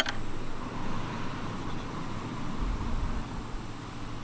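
Wind rumbling and buffeting on the microphone, with gusts swelling in the low end about two-thirds of the way through. A single sharp click marks the very start.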